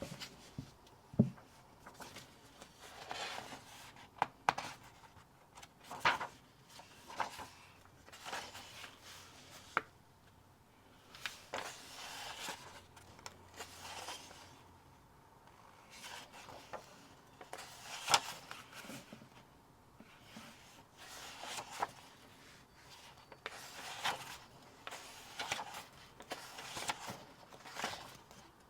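Hands handling items from a book subscription box: irregular rustling, rubbing and scraping of paper, card and books, with a few sharp taps, the loudest about a second in and again near eighteen seconds.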